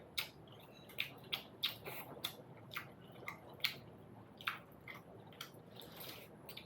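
Close-miked chewing of momo dumplings: irregular wet mouth smacks and clicks, about two a second.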